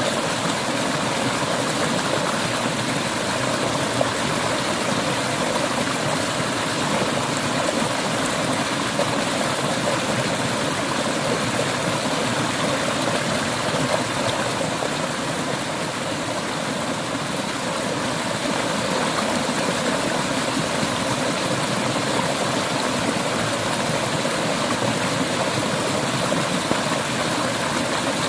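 River water flowing and splashing steadily over stones, a constant rushing.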